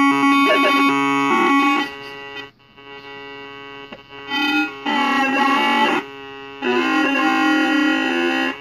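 Small hobby electronic synthesizer circuit board sounding sustained electronic tones, the pitch jumping between several notes. The tone drops away and comes back loud a few times.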